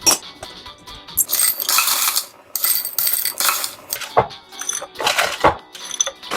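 Whole coffee beans rattling and clicking against the metal of a stovetop moka pot, in several rattling bursts of a second or so each, with sharp clinks in between.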